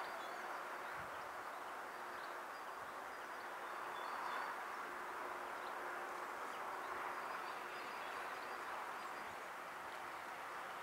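Distant BR232 'Ludmiła' diesel locomotive running with a faint steady drone under even outdoor background noise, with faint high bird chirps now and then.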